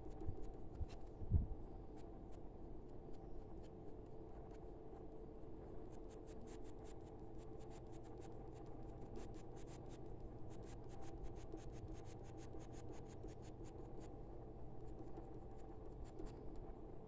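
Grey coloured pencil scratching on drawing paper in quick, short strokes as fine fur is shaded. The stroking is fastest in the middle stretch, over a faint steady hum. There is a soft low thump about a second in.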